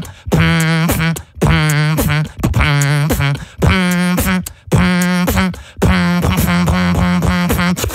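Beatboxer's voice into a studio microphone: a low held vocal note repeated about six times on the same pitch, each roughly a second long with short breaks between, the last one held longer.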